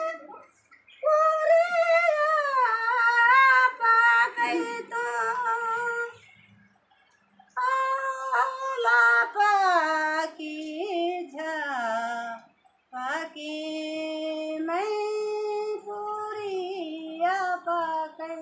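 A woman singing alone, unaccompanied, in long held phrases broken by short pauses.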